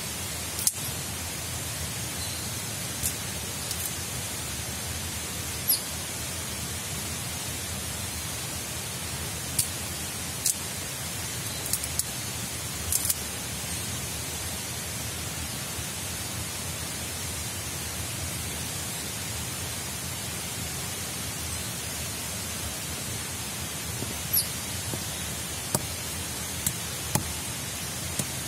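Steady hiss of rain, with short sharp clicks and knocks now and then as split sticks of wood are stacked by hand.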